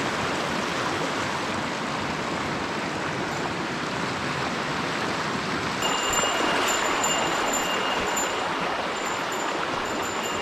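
Mountain stream water rushing steadily. About halfway through, a high, thin ringing tone joins it, breaking off and resuming every second or so.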